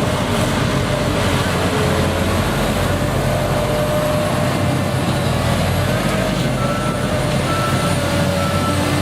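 Heavy machinery engine running steadily, with a low hum, and a series of short high beeps in the second half.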